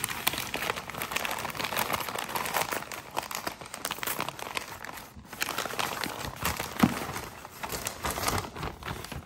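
White packing paper being crumpled and pulled open by hand, a dense crinkling that goes on with a brief pause about five seconds in.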